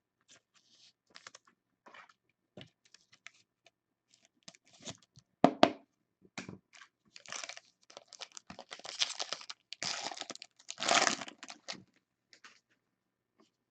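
Trading cards and their packaging being handled: scattered light clicks and taps, then crinkling and rustling that comes and goes from about seven to twelve seconds in.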